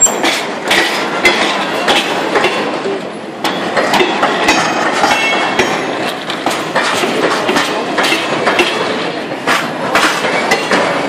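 Freight train of flatcars rolling past close by: a steady rumble of wheels on rail with irregular clattering knocks and short high wheel squeals.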